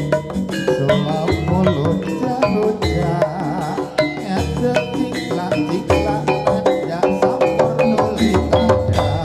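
Javanese jaranan music: gamelan ensemble with hand-played kendang drums keeping a steady beat under quick, repeated struck metallophone notes.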